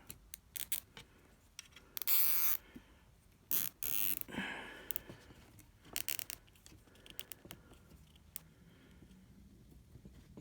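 Nylon cable tie being cinched tight around a charger cable, its ratchet zipping in three short pulls about two seconds apart, among small clicks from handling.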